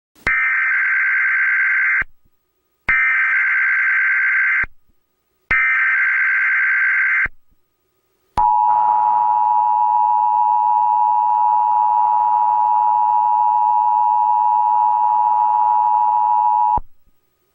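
Emergency Alert System header tones: three bursts of SAME data, each a harsh buzzing screech of under two seconds with short gaps between, then the EAS two-tone attention signal held steadily for about eight seconds. Together they mark the activation of an emergency alert broadcast.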